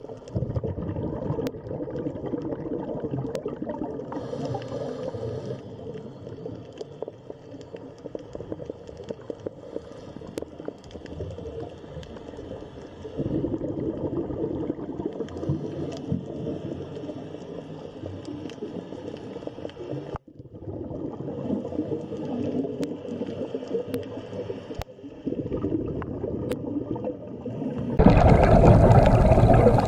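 Underwater ambience picked up by a diving camera: a steady rushing, gurgling water noise that changes abruptly at several points, louder and fuller near the end.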